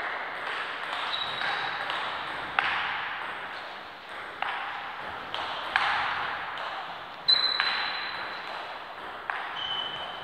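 Table tennis rally: the celluloid-type ball clicking sharply off the bats and table, roughly once a second, each hit echoing and dying away in a large gym hall.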